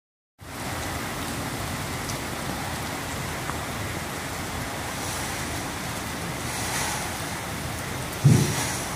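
Heavy rain falling steadily as an even hiss, with a brief low thump near the end.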